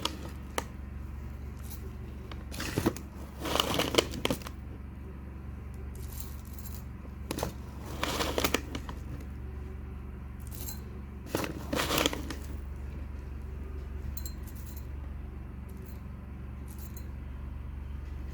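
Clinks and rattles of cetyl alcohol being shaken out and handled into a container on a scale, in a few short bursts, over a steady low hum.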